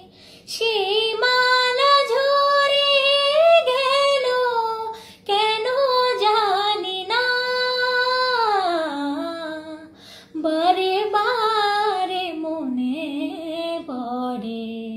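A young woman's voice singing a Bengali song unaccompanied. She sings three long phrases with held, wavering notes and slow downward glides, taking a short breath between them.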